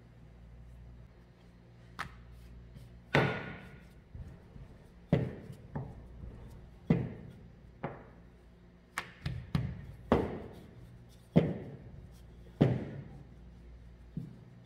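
Irregular sharp knocks and thuds, about a dozen, from a wooden rolling pin and a thin sheet of dough being worked, lifted and set down on a hard countertop.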